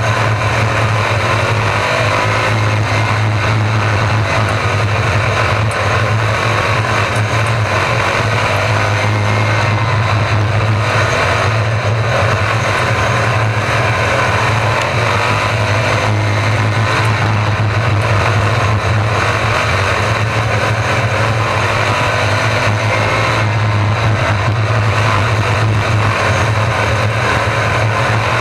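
RaceSaver 305 V8 sprint cars racing: loud, continuous engine noise that rises and falls over a steady low drone.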